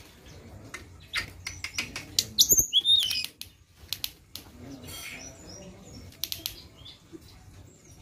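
Caged blue flycatcher (tledekan) making short high whistled notes and sharp clicks, loudest about two and a half seconds in, with fluttering and clicking as it moves about the cage.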